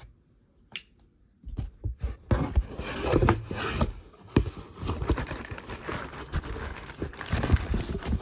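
Cardboard speaker box and its packaging being handled and opened: rustling and scraping with repeated knocks. It starts about a second and a half in after a few faint clicks.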